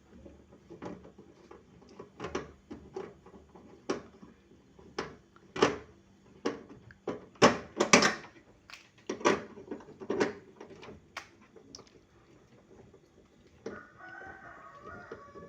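Irregular sharp clicks and knocks of tools and metal parts being handled during work on a refrigerator evaporator, loudest in a cluster about halfway through. A rooster crows faintly near the end.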